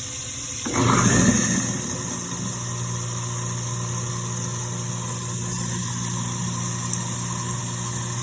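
Garbage disposal motor switching on about a second in with a loud surge at start-up, then running with a steady hum: the unit working again after its built-in overload reset was pressed.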